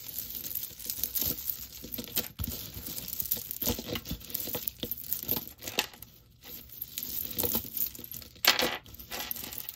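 A pile of costume jewelry, faux-pearl and glass-bead necklaces, chains and small metal pieces, being rummaged through by hand and dragged across a cloth-covered table, with a dense, irregular clatter of clicks and clinks. A louder rattle comes near the end.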